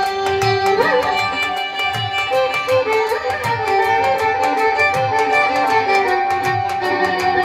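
Instrumental interlude of a Bengali devotional song: a violin melody over a steady held drone, with a drum beat and a quick, even, high ticking percussion.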